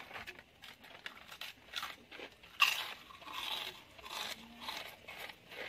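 Potato chips being bitten and crunched in quick, irregular mouthfuls, mixed with the crinkle of the foil chip packet as a hand reaches in. The sharpest crunch comes about two and a half seconds in.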